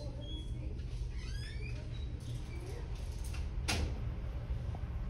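Indoor room tone with a steady low hum, a quick run of short high squeaky chirps about a second and a half in, and one sharp knock a little before four seconds.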